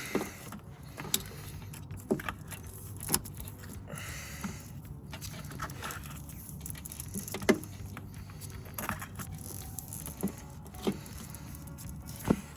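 Hands wrapping electrical tape around freshly soldered sensor wires: scattered sharp clicks and a brief tearing rustle of the tape about four seconds in, over a steady low hum.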